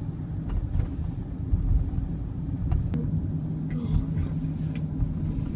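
Car driving along, a steady low road and engine rumble heard from inside the cabin, with a few faint ticks.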